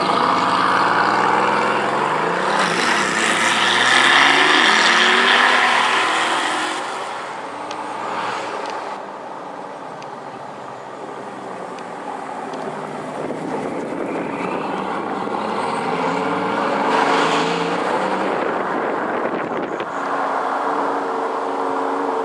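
Bugatti Veyron 16.4's quad-turbocharged W16 engine through a Mansory exhaust, accelerating hard with a loud, rising note over the first several seconds that then falls away. After a cut, it runs at lower revs, rises again about two thirds of the way through, and settles to a steadier low note near the end.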